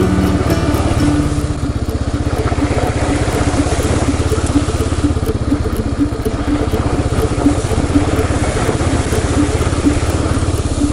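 Kawasaki KLR 650's single-cylinder four-stroke engine running steadily under way, riding through puddles on a wet, rocky trail, with water spraying up from the tyres.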